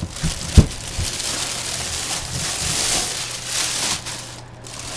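Packaging rustling and crinkling as a collectible box is handled and opened, with a single sharp knock about half a second in.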